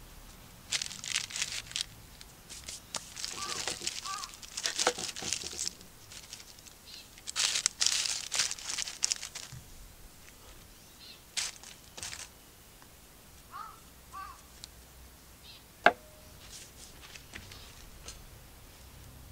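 Crusty bread with a crisp crust being torn apart by hand, the crust crackling and the crumb ripping in several bursts of a second or two. A single sharp click about three quarters of the way through.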